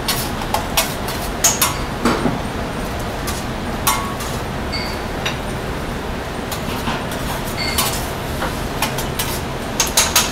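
Metal spatula scraping and tapping on a flat-top griddle over a steady sizzle of eggs, an omelette and tortillas frying. The sharp scrapes and clacks come thickest near the start and again near the end.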